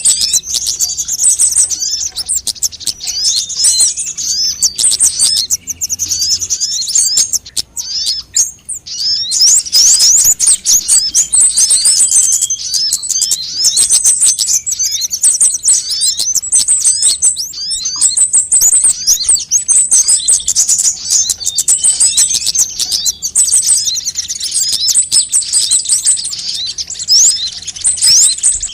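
Sunbird calls recorded and played as a bird lure: dense, rapid, high-pitched chirps and twittering trills from several birds, with a short high trill repeating about once a second.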